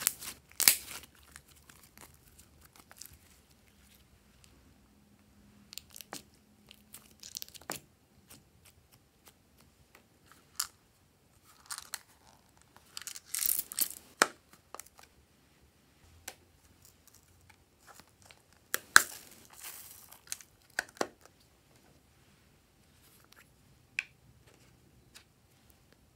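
Hands squeezing, pulling and peeling glossy slime, heard as sticky handling noises in scattered short bursts a few seconds apart with quiet between.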